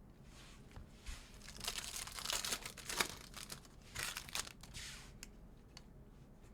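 Foil trading-card pack wrapper crinkling and tearing as it is ripped open, in a run of rustles, loudest in the middle few seconds.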